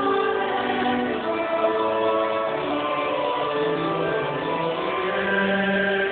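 A large mass choir singing in parts, several voices holding long notes together and moving to new notes every second or so.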